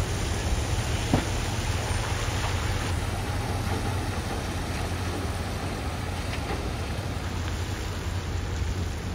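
Heavy-haul truck's diesel engine running low and steady as the tractor-trailer creeps along hauling a subway car, under a steady hiss of rain on wet pavement. A single sharp tick about a second in.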